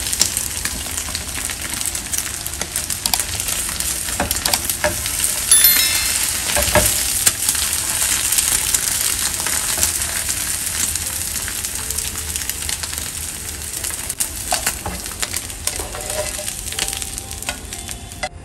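Egg sizzling in oil on a flat dosa tawa while a spatula scrapes and breaks it up, with scattered clicks and scrapes of the spatula against the pan. The sizzle stops abruptly at the very end.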